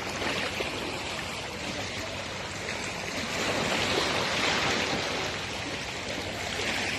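Moving water: a steady wash that swells a little in the middle.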